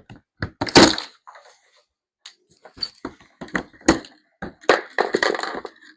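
White plastic plugs being pulled out of the bottom of a cardboard bike shipping box: a series of sharp knocks and clacks against the cardboard, the loudest just under a second in, then a run of knocks and scraping in the second half.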